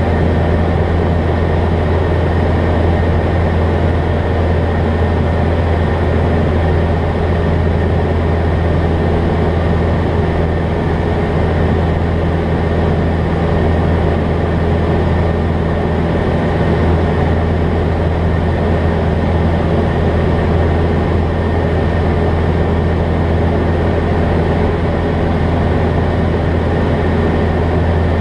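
Jabiru light aircraft's engine and propeller running steadily in flight, a loud constant drone heard from inside the cockpit.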